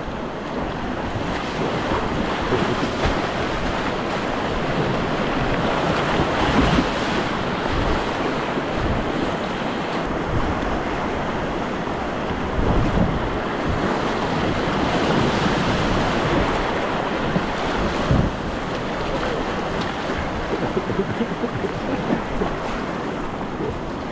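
Whitewater river rushing steadily over rapids, with wind buffeting the microphone in low thumps.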